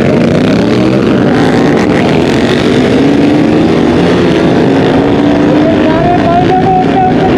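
Motorcycle engine running at riding speed on the road, its pitch drifting slowly up and down, with wind rushing.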